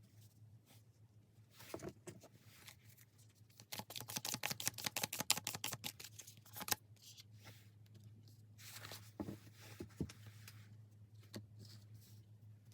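Tarot cards being shuffled and handled: a dense run of rapid flicking clicks for about three seconds in the middle, with scattered single card-handling rustles and taps before and after, over a steady low hum.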